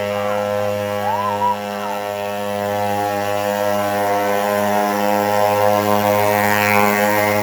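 Small 50cc two-stroke pocket bike engine running at a steady speed with an even, unchanging pitch.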